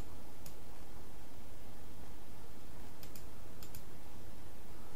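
Computer mouse clicks: single clicks at the start and about half a second in, then two quick pairs of clicks about three and three and a half seconds in, over a steady low hum.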